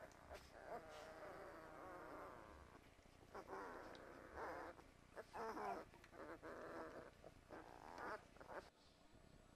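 Two-week-old Great Dane puppies whimpering faintly: a long wavering whine over the first few seconds, then a string of short squeaky whimpers that stops just before the end.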